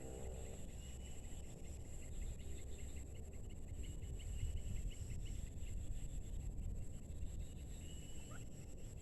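Outdoor rural ambience: a steady high insect drone with scattered short bird chirps over a low rumbling noise, and one brief rising chirp near the end.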